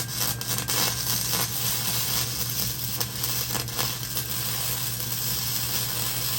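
Electric welding arc crackling and sizzling steadily as a weld bead is laid on the steel of a smoker grill.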